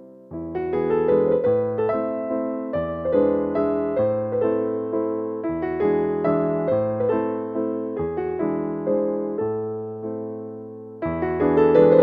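Background music: a gentle electric piano melody with chords, the notes struck and left to fade in an even rhythm.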